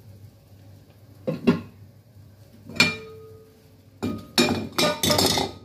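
Cookware clattering as a metal cooking pot and its glass lid are handled on a stove: two knocks, then a single clink that rings on briefly, then a quick run of clattering knocks near the end.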